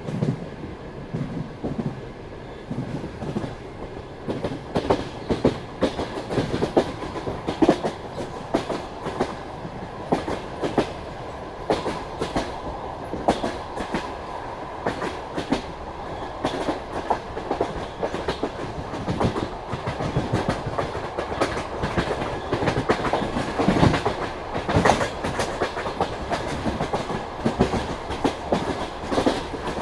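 Railway carriage wheels clacking and knocking irregularly over rail joints and station switches as the train rolls into a station, heard from aboard, with a steady running rumble underneath.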